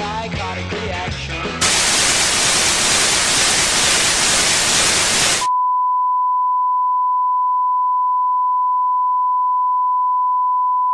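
Garage-rock music is cut off a second and a half in by loud white-noise static. About five and a half seconds in, the static switches abruptly to a steady single-pitched test tone of the kind that goes with TV colour bars.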